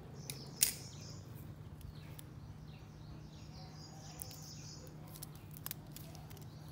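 A few sharp clicks, the loudest just under a second in, over a steady low hum, with faint high chirping in the background.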